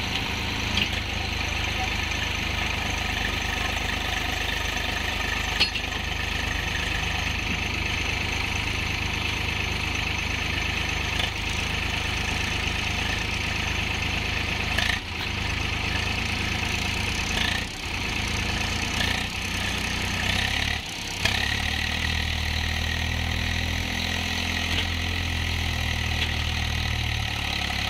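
Swaraj tractor diesel engine running steadily while the tractor and its loaded sand trailer sit bogged in wet sand. About three quarters of the way through, the engine note grows deeper and stronger as it works harder, then drops back just before the end.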